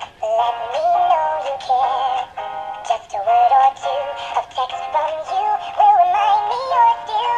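Gemmy animated dancing Christmas squirrel toy singing a Christmas song in a high-pitched electronic voice over its music track, the phrases breaking every half second or so.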